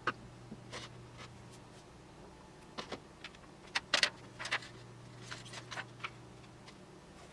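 Scattered short rustles and clicks of tape and thin plastic membrane sheets of a Logitech K120 keyboard being handled while its contact points are taped over, in small clusters with the loudest about four seconds in.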